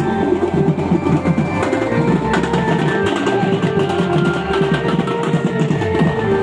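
Music with a drum-heavy beat played loudly through a DJ sound system.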